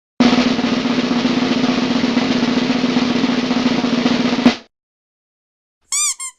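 Snare drum roll sound effect, a fast continuous roll lasting about four seconds and ending in a sudden loud hit. Near the end come two short chirping tones, each rising and falling in pitch.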